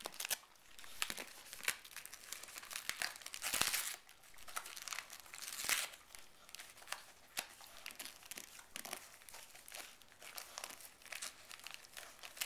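A dog chewing and tearing at shiny foil gift wrap, with irregular crinkling and ripping. It gets louder in brief rustles about three and a half seconds in and again near six seconds.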